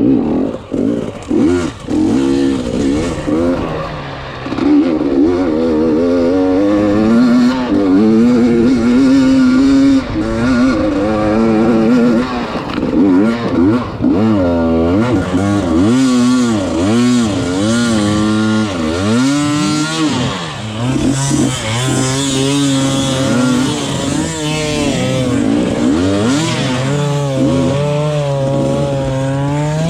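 Enduro motorcycle engine under hard off-road riding, its revs climbing and dropping again and again as the throttle is worked and gears are changed.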